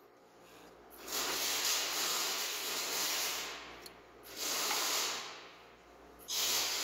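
Compressed air hissing in three long bursts: the first lasts about three seconds, the second about a second, and the third starts near the end.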